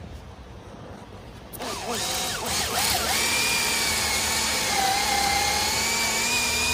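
Cordless drill boring into a ponderosa pine timber, likely with a 1-inch Forstner bit. The drill starts about a second and a half in and winds up unevenly as the bit bites. It then holds a steady whine while cutting, and stops at the end.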